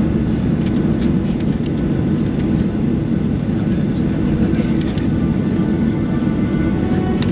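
Cabin noise of a Boeing 737-800 taxiing, heard from a window seat over the wing: the CFM56-7B engines run at low taxi power as a steady, even low rumble, with a faint engine whine above it.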